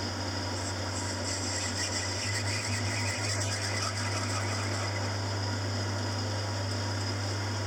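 Small metalworking lathe running steadily with a low hum, facing a brass piston down to its final length.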